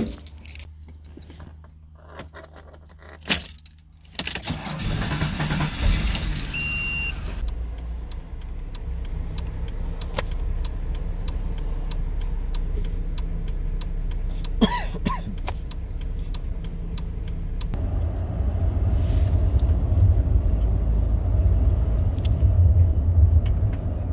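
Car keys jangling and clicking, then a car engine starting at about four seconds in and running with a steady low rumble. A short electronic beep sounds just after the start, and a fast, even run of ticks lasts about ten seconds. From about eighteen seconds the vehicle rumble grows louder.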